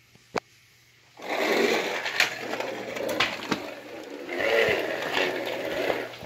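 Small plastic toy vehicle pushed by hand along a wooden floor: wheels rolling with a noisy whir and scattered clicks, swelling twice, after a second of near silence with one click.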